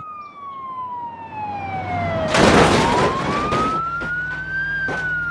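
Toy ambulance's electronic siren giving a slow wail, a single tone gliding down, then up, then down again. A loud burst of noise about two and a half seconds in lasts over a second.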